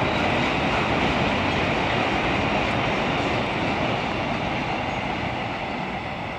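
Freight train rolling past, with the steady noise of its wagon wheels on the rails easing slightly near the end.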